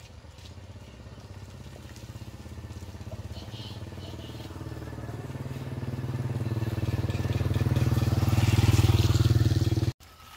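A small engine running with a fast, even pulse, growing steadily louder as if coming closer, then cutting off suddenly near the end.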